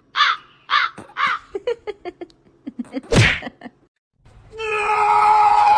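A crow cawing about twice a second, then a quick run of shorter calls and one loud harsh caw about three seconds in. After a short pause, a long steady cry begins near the end.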